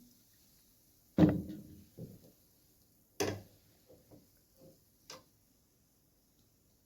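Close-miked eating of noodles: a handful of sharp clicks and knocks from mouth and utensils, the loudest about a second in, followed by softer ones.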